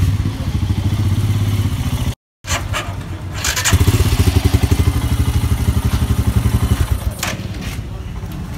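Motorcycle engine running with a rapid, even beat, louder for about three seconds in the middle, with a brief cut to silence just after two seconds.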